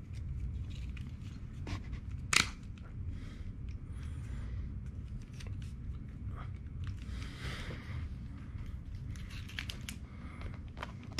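Hard plastic parts rubbing, scraping and clicking in the hands as a cigarette lighter socket is pushed along its tracks into its plastic trim housing, with one sharp click about two and a half seconds in.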